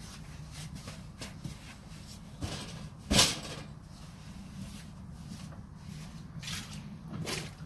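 Heavy natural-stone slab being set down and handled on a wooden pallet bench: a few knocks, the loudest about three seconds in, over a steady low hum.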